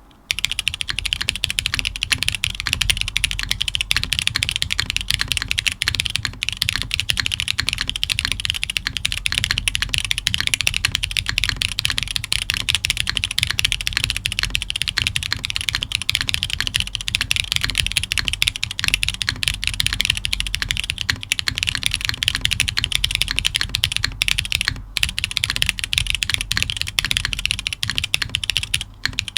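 Fast, continuous typing on a custom mechanical keyboard with linear Cherry MX Black switches (NK Cream stems, films) and thick PBT CRP keycaps, undampened on a polypropylene plate, with a low thud from desk vibration under the clacks. The typing starts about half a second in, with brief pauses twice.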